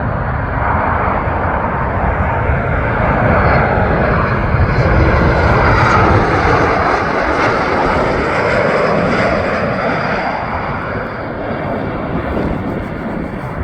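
Boeing 737 MAX 8 jet on landing approach passing overhead. Its CFM LEAP-1B engine noise swells to a peak about five or six seconds in, then slowly fades as it goes by.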